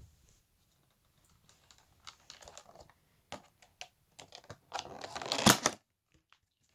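A pet lizard biting and chewing a fruit beetle grub: irregular wet clicks and crunches, ending in a longer, louder crunching burst about five seconds in.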